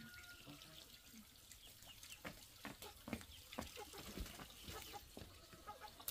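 Faint footsteps and clothing rustle as a person walks past close by, about two steps a second. Faint short chirps are in the background, like fowl or small birds.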